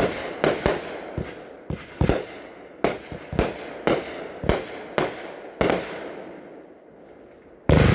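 Bodacious consumer firework cake firing: a quick series of sharp bangs from the bursting aerial shells, about two a second. After a pause of about two seconds comes the loudest bang, near the end.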